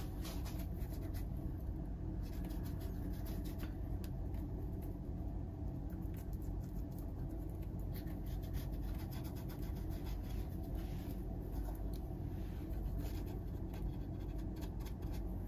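Paintbrush scratching and scrubbing acrylic paint onto a canvas in short, irregular strokes, over a steady low hum.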